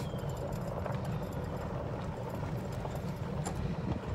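Golf cart driving along: a steady low rumble with a few light clicks and rattles.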